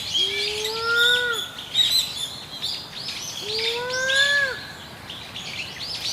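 Satyr tragopan calling twice, each a long call of about a second that rises slightly in pitch and drops at the end, over a dense chorus of small birds chirping.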